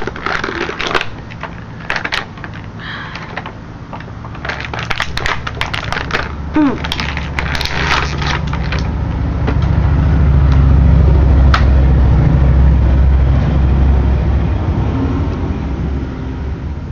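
Plastic action-figure packaging being handled and pried open, with scattered crinkles and sharp clicks through the first half. From about halfway in a loud low rumble takes over for several seconds.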